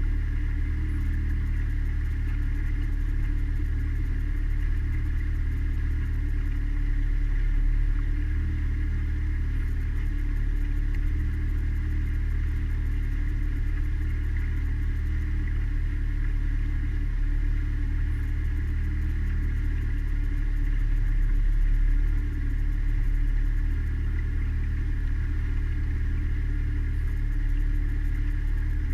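Mariner outboard motor pushing a small boat along, running at a steady, unchanging speed with a constant low drone.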